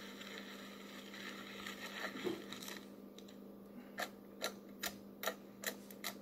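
Clicking on a laptop as a document is scrolled: a run of short sharp clicks, about two a second, starting about four seconds in, over a steady low hum.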